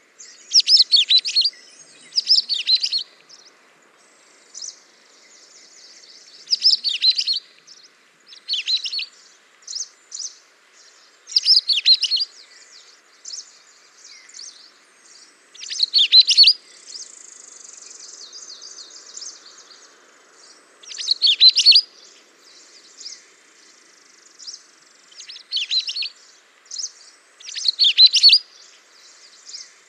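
Songbird chirping: short bursts of rapid high chirps every few seconds, with softer chirps between, over a faint steady hiss.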